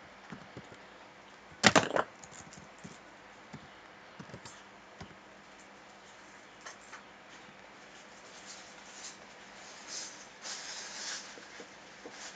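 Computer keyboard: a quick run of keystrokes about two seconds in, the end of a terminal command typed and entered, followed by a few faint scattered clicks and a soft rustle near the end.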